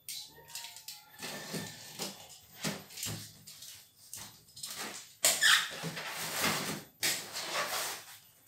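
A cardboard shipping box being torn open by hand: packing tape ripping and cardboard flaps being pulled back in a series of rough scraping bursts, the loudest about five and seven seconds in. There is a brief squeak near the start.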